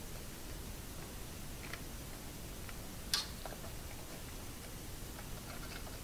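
A few faint clicks and ticks from a small screwdriver and screws being loosened on the printer's small metal cover, with one sharper click about three seconds in, over a low steady hiss.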